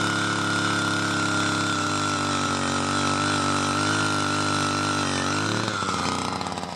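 Harbor Freight gas auger powerhead running steadily under load while boring a post hole in soil. Near the end its engine note falls and fades as it winds down.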